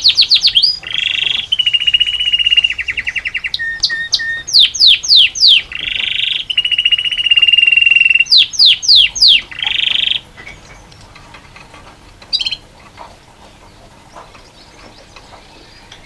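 Male canary in full song: fast trills of repeated down-slurred notes alternating with long, even rolls, stopping about ten seconds in. A single short chirp follows a couple of seconds later.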